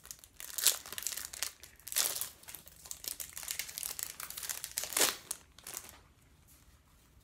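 Trading-card pack wrapper being torn open and crinkled by hand: irregular crackling, with the loudest crinkles near the start, about two seconds in and about five seconds in, stopping about six seconds in.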